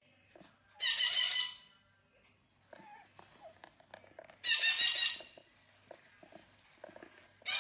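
A pet parrot giving loud, shrill squawks, three in all, each under a second long and roughly three seconds apart.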